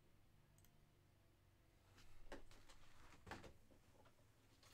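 Near silence: room tone with a faint hum, then a few faint knocks and rustles of objects being handled from about two seconds in.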